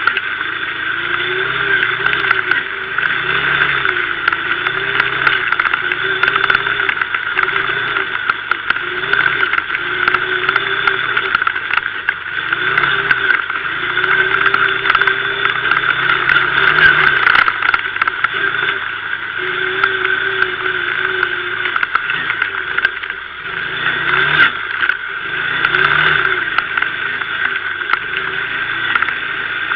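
Kymco MXU 500 quad's single-cylinder engine running as it is ridden, the revs rising and falling.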